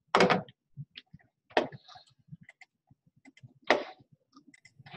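A few sharp clicks and knocks: four louder ones spaced irregularly, about one to two seconds apart, with fainter small ticks between them.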